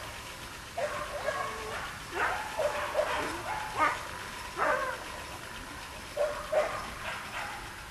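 A dog barking and yelping over and over, short sharp calls often in pairs, about one a second.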